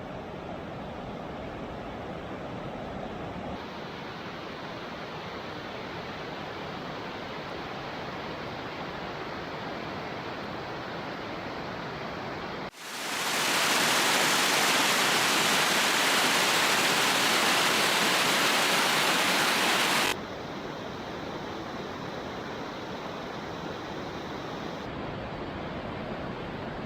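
Steady rush of a river's rapids and waterfall. About halfway through it turns much louder and brighter for about seven seconds, starting and stopping abruptly.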